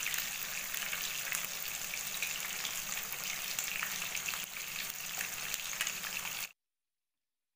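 Rohu fish steaks shallow-frying in vegetable oil in a pan: a steady sizzle with fine crackles. It stops abruptly about six and a half seconds in.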